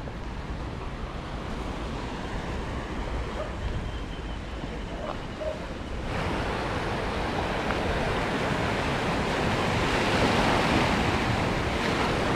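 Sea surf washing against a rocky shore, with wind on the microphone; the rush of water grows louder about halfway through.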